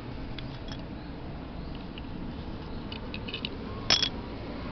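Small clicks and taps from a motorcycle carburetor's metal body and plastic float assembly as they are handled, with a sharper clack just before the end, over a steady low background rumble.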